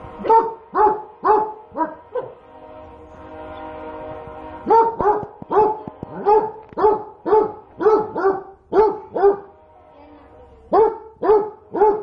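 A dog barking over and over at food too hot to eat, in three runs of quick barks, about two a second, with short pauses between.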